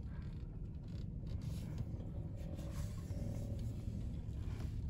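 Car running, a steady low rumble heard from inside the cabin.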